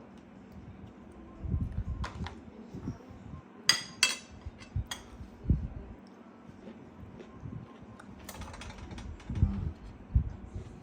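Eating at the table: chewing and the handling of food and plates, with soft low thumps and rustles, and two short ringing clinks of dishes about four seconds in.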